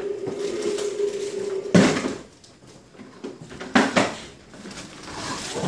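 Hard plastic wheels of a toddler's ride-on toy rolling over a tile floor with a steady hum, broken by two loud knocks about two seconds apart as the toy bumps.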